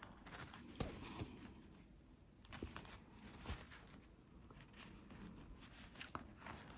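Faint rustling and a few scattered soft clicks of hand bead embroidery: a needle and thread being drawn through the beaded canvas.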